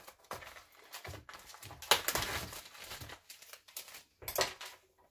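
Crinkling and rustling of plastic packaging being handled, in irregular bursts, with a sharp click about two seconds in.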